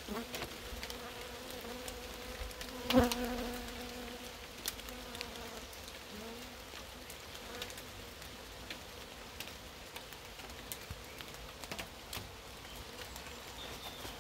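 Honeybees buzzing around an open nucleus colony as its frames are worked, a steady hum. A sharp knock about three seconds in, with scattered light clicks.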